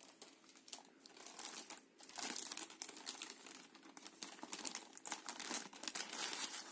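Clear plastic bag crinkling as hands handle and unwrap it: a few scattered crackles, then dense crinkling from about two seconds in.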